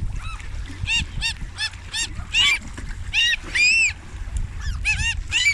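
Geese honking: a quick series of about a dozen short, arched calls, with a brief pause about four seconds in before a few more.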